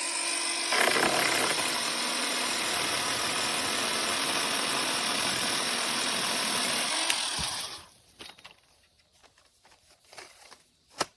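Cordless electric pole saw running, its motor and chain making a steady whine that rises slightly about a second in, then dying away and stopping after about seven and a half seconds. A few faint clicks and handling sounds follow.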